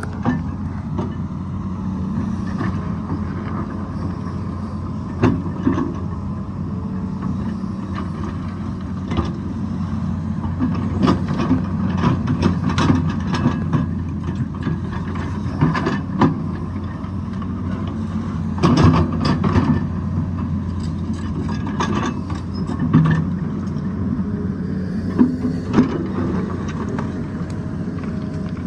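Hydraulic excavator's diesel engine running steadily under load, with repeated sharp knocks and clatters of the bucket scraping and striking rock, in thicker bursts twice.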